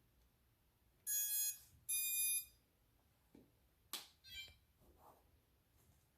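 Quadcopter's brushless motors sounding the electronic speed controllers' power-up beeps, the sign that the ESCs have just been connected: two electronic tones of about half a second each, the second higher. A sharp click follows about two seconds later.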